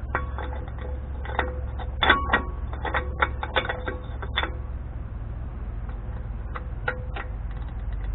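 Ratchet wrench clicking in quick irregular runs as the Dana 44 front hub's spindle adjusting nut is backed off a third of a turn to set the wheel-bearing preload, then a few scattered clicks near the end.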